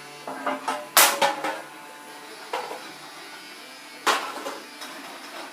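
Vacuum cleaner motor humming steadily, with several sharp knocks and clatters as it bumps about, the loudest about a second in and another about four seconds in.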